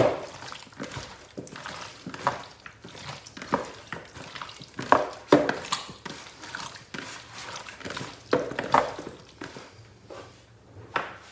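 Hands mixing and rubbing spice-coated raw chicken wings in a plastic bowl, in irregular strokes, with a louder one near the end.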